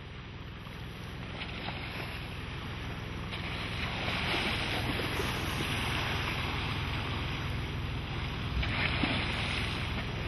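Water rushing and splashing around a sailboat's bow, with wind on the microphone and a low steady hum underneath. It fades in over the first few seconds and grows louder.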